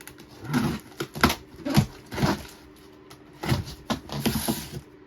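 Cardboard model-kit boxes being handled and shifted around inside a shipping box: a run of irregular scrapes, rustles and light knocks.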